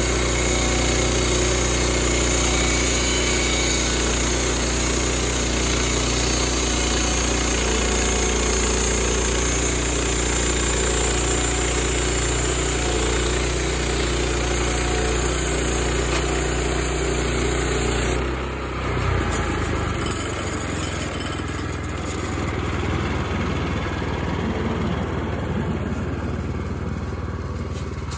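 Wood-Mizer LX25 portable band sawmill's gas engine running steadily under load as the band blade cuts a board from a log. About 18 seconds in the steady engine note drops off as the cut ends, and the engine keeps running at a lower, rougher idle.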